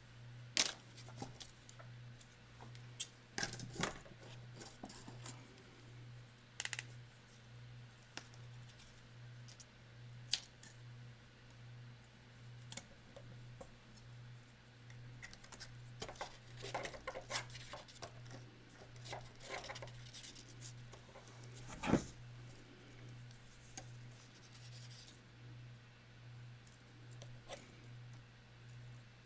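Scattered sharp clicks, snips and scratches of hand work with wire and tools on a sculpture armature, busiest a little past the middle, over a steady low hum.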